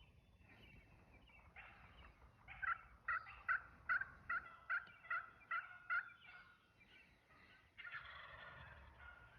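Turkey calling: a run of about nine short, evenly spaced yelps, a little under half a second apart, with a longer rough call near the end.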